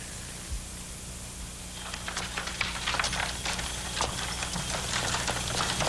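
Street ambience: a low hum, then from about two seconds in a steady hiss with many small clicks and knocks.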